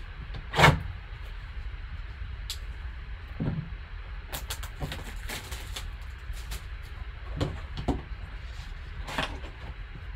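Gloved hands handling and opening a sealed cardboard trading-card box: a series of rustles, scrapes and light knocks, the loudest about half a second in, with a quick cluster of small clicks around four to five seconds in, over a steady low hum.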